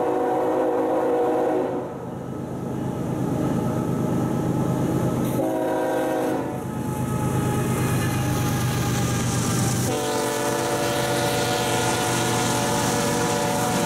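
CSX diesel freight locomotive air horn blowing a crossing sequence: a long blast that ends about two seconds in, a short blast around six seconds, then a long blast held from about ten seconds on. Underneath is the steady rumble of the approaching train, with wheels clicking on the rails as the locomotives pass near the end.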